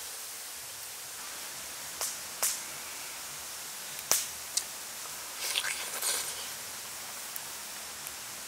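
Eating sounds of chicken close to the microphone: four sharp mouth smacks in the first five seconds, then a brief run of chewing noises, over a steady high hiss.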